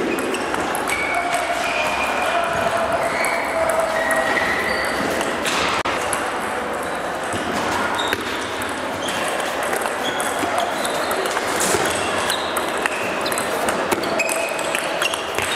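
Table tennis rallies: the ball clicking off bats and table at scattered moments, over a steady background din of the sports hall.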